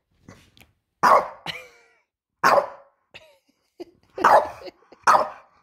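French bulldog barking in short, sharp barks: four loud ones with several softer ones in between, roughly a second apart.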